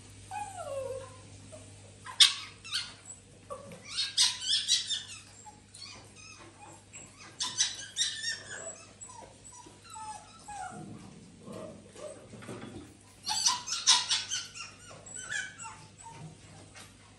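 Small dogs whining and yipping, with short gliding whines and clusters of sharp yips, the loudest about two, four and fourteen seconds in.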